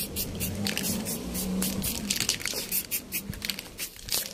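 Aerosol spray paint can hissing in short bursts as a first thin coat of yellow paint goes onto a plastic motorcycle fairing, with a low hum underneath for the first two seconds.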